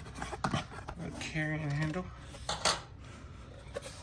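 Small powder-coated metal tool box being handled: light metallic clinks and knocks as it and its carrying handle are moved, with a sharper knock about two and a half seconds in.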